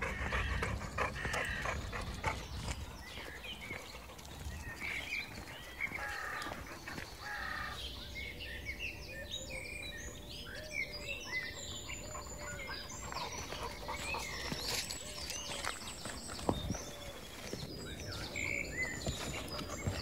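Small birds chirping and twittering over steady outdoor background noise, the chirps coming thickest in the second half.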